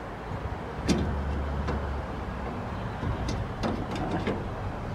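Light clicks and taps of a chrome headlight bezel and grille trim being pressed into place by hand: one about a second in, then a cluster of several between three and four and a half seconds, over a low steady background rumble.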